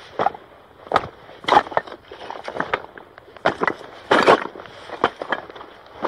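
Hiking boots walking on loose shale and rock, each step crunching and scraping the stones underfoot at an uneven pace of one to two steps a second. The heaviest step comes about four seconds in.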